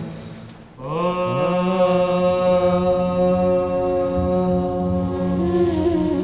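A meditative chant: a single note with rich overtones that glides up into pitch about a second in and is then held steadily, with a second pitch wavering in near the end.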